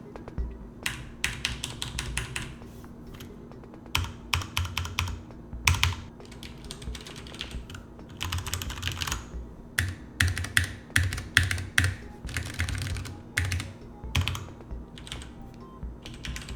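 Typing on a mechanical keyboard with Cherry MX Brown switches: quick runs of key clacks in bursts, with short pauses between them.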